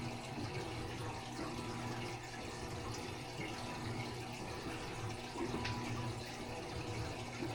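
Steady running water of a home aquarium, as from a filter's outflow trickling into the tank, with a low steady hum underneath.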